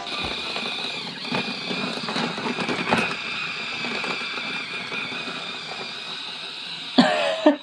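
A small electric motor in a motorised LEGO train car runs with a steady high whine and gear noise. There are occasional light clicks from the plastic wheels running over the track and points.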